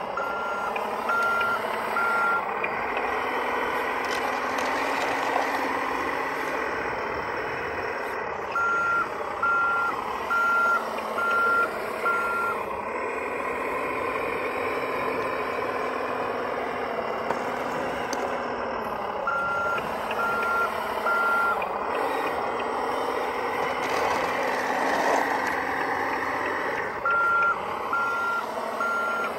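The 1/14 scale Kabolite K988 (CAT 988K) RC wheel loader runs with a steady engine note and mechanical whirring as it works. Its back-up alarm sounds four times while it reverses, in groups of three to five beeps at about one a second.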